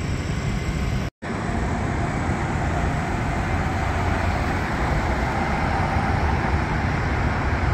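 Steady droning hum of many food-truck generators running together, mixed with road traffic; the drone breaks off for an instant about a second in, then carries on unchanged.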